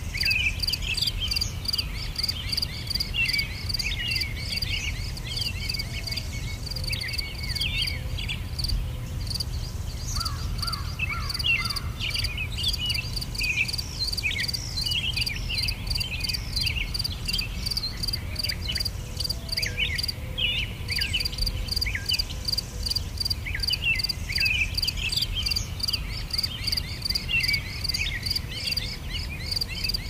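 Nature ambience of a rapid, even, high-pitched chirring, like insects, with many short bird chirps over it and a steady low rumble underneath.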